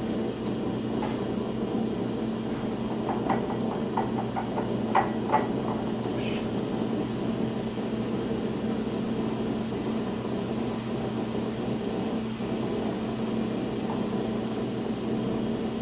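Steady low hum of room noise, with a few faint light clicks about three to five seconds in.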